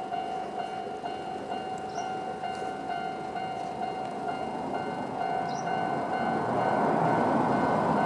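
Japanese railway level-crossing warning bell, the old-type standard electronic tone, dinging over and over. From about halfway through, the rumble of an approaching Fukushima Kotsu 1000 series electric train grows louder under it.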